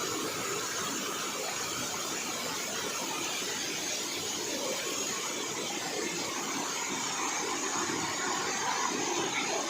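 Steady rush of waterfall water, an even hiss that does not change in level.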